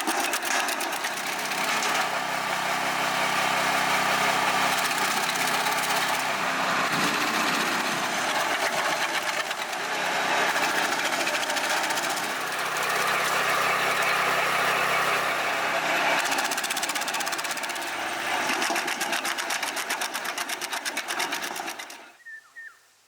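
REMET RSH120 wood chipper running under power, a steady mechanical din with a fast engine beat whose pitch sags and recovers a few times. It stops abruptly about a second before the end.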